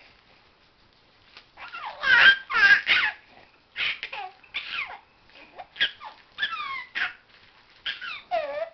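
Baby laughing and squealing in repeated high-pitched bursts. The bursts begin about two seconds in and are loudest just after they start.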